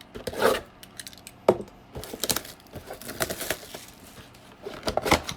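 Foil trading-card pack wrappers crinkling and cards being handled, as a series of irregular crackles and clicks. The crackling is thickest in the middle and again near the end.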